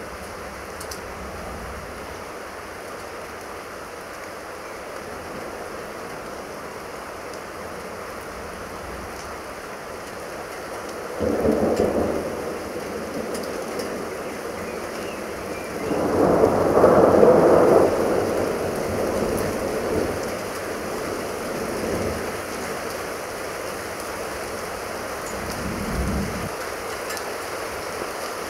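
Steady rain during a thunderstorm, with thunder rumbling about 11 seconds in and again, louder and longer, about 16 seconds in, followed by fainter rumbles.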